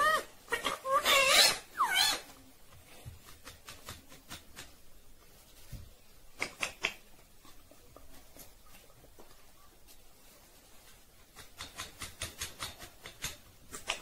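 Rose-ringed parakeet giving loud gliding, whistle-like calls for the first two seconds, then quiet apart from a few scattered clicks and a quick run of taps and clicks near the end.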